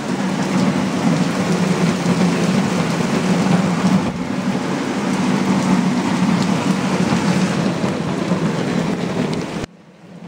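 Heavy rain mixed with hail pelting down in a dense, steady patter, cutting off abruptly near the end.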